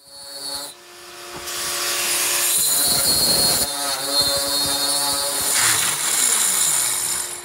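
Angle grinder with a diamond core bit boring a faucet hole through a granite countertop. The motor whines up first, then about a second and a half in a loud, steady grinding hiss joins as the bit cuts into the stone, stopping near the end.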